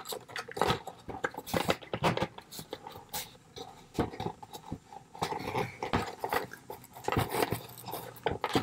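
Hands handling a toy's cardboard and clear-plastic packaging insert: irregular clicks, crackles and scrapes as small plastic accessories are worked free of their wire twist ties.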